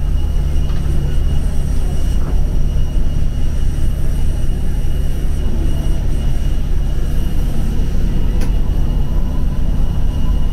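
Airliner cabin noise: the steady low rumble of the jet engines and airflow, with a faint steady high whine above it. A single small click about eight seconds in.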